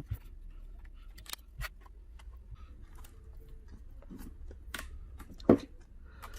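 Scattered small clicks and scrapes of hand tools and laptop parts being handled as the adhesive-bonded screen panel is worked loose from the mid frame, with one sharp knock about five and a half seconds in.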